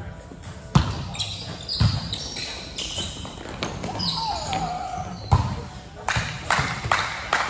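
A basketball bouncing on a hard court: a handful of irregular, sharp thuds, with faint voices in the background.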